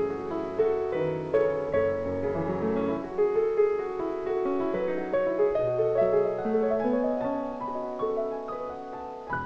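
Calm piano relaxation music: notes ringing and overlapping one after another over lower held bass notes.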